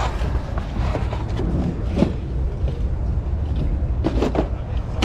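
Cardboard board-game boxes being handled and sorted through, with a sharp knock about two seconds in and a short run of rustles and knocks near the end, over a steady low rumble.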